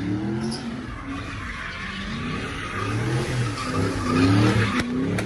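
Chevrolet Camaro doing donuts: the engine revs up and down in waves while the spinning rear tyres screech on the asphalt, loudest about four seconds in.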